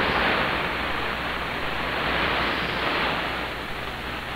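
Open-squelch static from an 11-meter CB radio receiver between transmissions: a steady even hiss of band noise with no signal on the channel, easing off slightly near the end.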